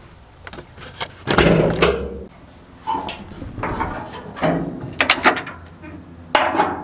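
A handful of separate knocks and clunks, the heaviest about a second and a half in, from tools and hardware being handled while the motorhome's battery is being disconnected.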